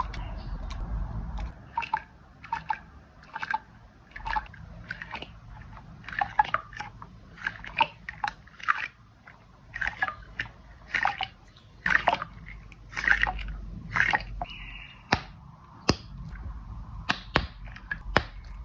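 Handmade pop-it squishy toy being pressed bubble by bubble, each press giving a sharp click-like pop that sounds like iPhone keyboard typing. The pops come in an uneven string of about one or two a second.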